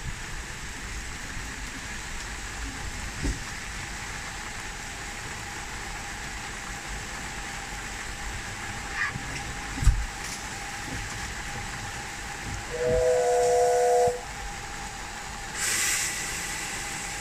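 Steam locomotive David Lloyd George, a Ffestiniog Railway double Fairlie, standing and hissing steam in the rain, then sounding one short whistle blast of two notes at once a little past the middle, followed shortly by a brief sharp burst of escaping steam.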